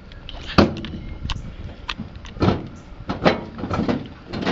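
Sharp plastic knocks and clicks, about one every half second and the loudest about half a second in, from a screwdriver turning a screw into the plastic chassis of a Caldera 10E RC truck.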